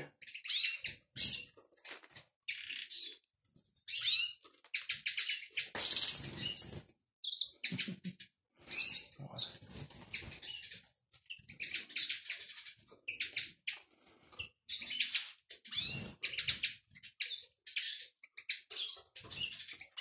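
Caged Eurasian siskins chirping and twittering in short high bursts again and again, with a couple of louder flutters about six and sixteen seconds in.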